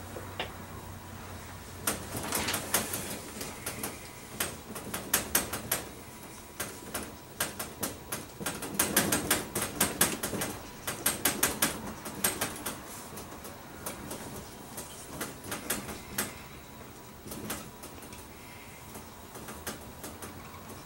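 Dry-erase marker squeaking and scratching across a whiteboard as words are written, in quick runs of strokes with short pauses between words.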